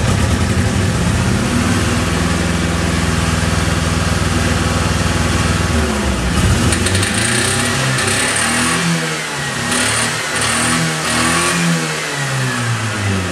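Nissan Cherry car engine held at a steady speed for about six seconds, then revved up and down again and again. White smoke is pouring from the engine bay: the engine is being deliberately run to destruction.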